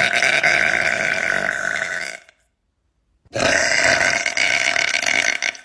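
A woman belching twice: two long, loud, rough burps of about two seconds each, the second starting about a second after the first ends.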